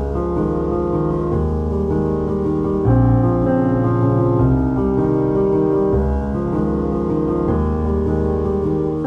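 Background piano music, slow held chords changing about every second and a half.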